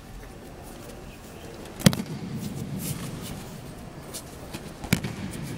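Two sharp slaps of aikido breakfalls onto the judo mats, about three seconds apart, each followed by a dull thud that echoes briefly through the big hall.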